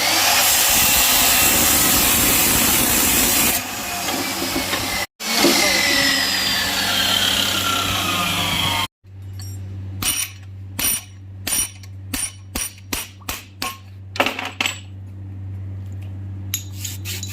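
A power tool running loudly with a harsh, hissing noise in two spells, the second with a whine that falls in pitch. After that, a steady low hum with a series of sharp metallic clicks and taps.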